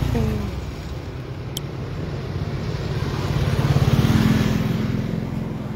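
A motor vehicle passing on the road, its engine hum and tyre noise swelling to a peak about four seconds in and then fading.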